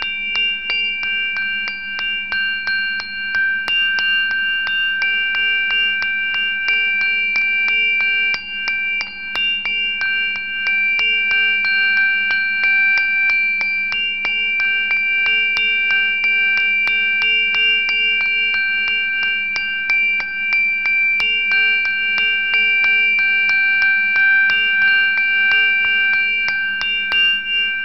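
Meditative music: several sustained bell-like ringing tones held steadily, over a fast, even pattern of light struck notes.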